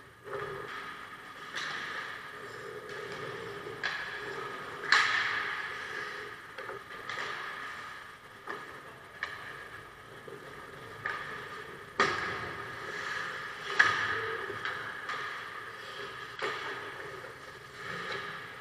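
Ice hockey play in an echoing indoor rink: sharp clacks of sticks on the puck and the puck hitting the boards, several scattered through, the loudest about five, twelve and fourteen seconds in, over a steady background hum and the scrape of skates on the ice.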